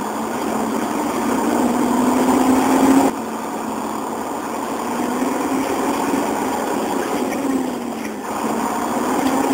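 A vehicle engine running, its pitch climbing slowly and dropping back several times, with abrupt breaks in the sound about three and eight seconds in.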